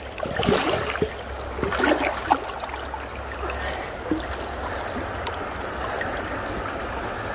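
Creek water running steadily. In the first two seconds or so there are splashes and a few sharp knocks as a hand works in the water around a heavy stone.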